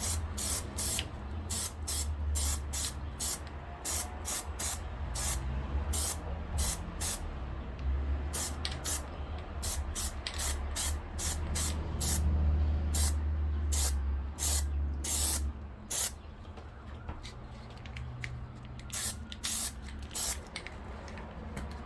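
Aerosol can of Plasti Dip rubber coating spraying in many short, quick bursts, laying a fourth coat onto a plastic handle. A steady low rumble runs underneath.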